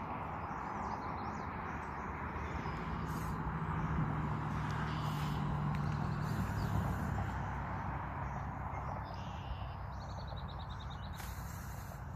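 Outdoor ambience: a steady background noise with faint bird chirps. A low hum swells from about four seconds in and fades a few seconds later.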